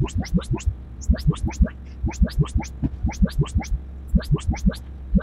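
Anthem ARC Genesis room-correction test sweeps played through the home theater speakers and subwoofers: rapid short chirps, several a second in uneven runs, over a steady low hum. They are the measurement signals of the automatic subwoofer phase adjustment.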